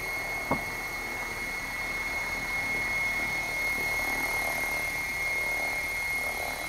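Electric 700-size RC helicopter (Assault 700) hovering: steady rotor whir with a constant high-pitched whine. There is a single sharp click about half a second in.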